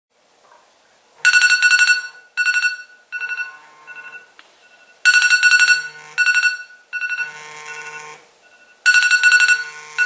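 iPhone alarm ringing: groups of rapid, high-pitched electronic beeps that start about a second in and repeat about every four seconds.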